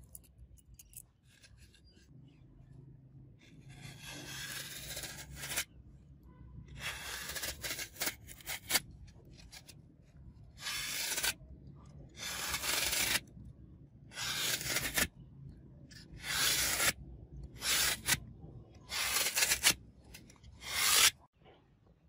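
A spring-steel butterfly knife blade slicing through a block of green foam in about nine short, scratchy strokes. They begin a few seconds in and get louder toward the end.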